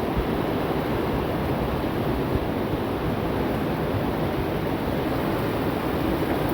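Steady rain falling, a continuous even hiss with no break.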